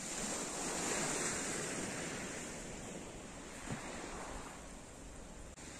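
Small sea waves breaking and washing up a pebble shore, a steady surf noise that swells about a second in and slowly eases off.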